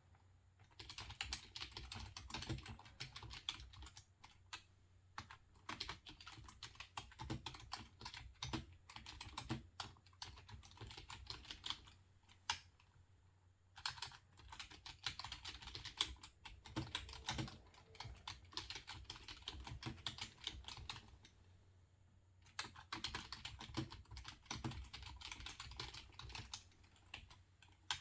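Typing on a computer keyboard: quick runs of soft keystrokes, pausing briefly twice, once around the middle and once about three-quarters of the way through.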